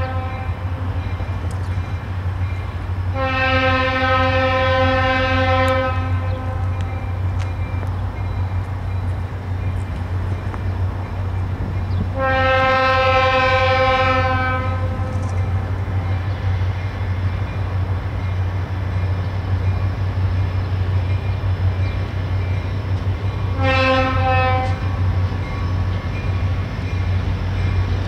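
Diesel freight locomotive's air horn blowing the grade-crossing signal as the train approaches: the end of one blast right at the start, two long blasts of about two to three seconds each, then a short blast near the end. A steady low rumble runs underneath.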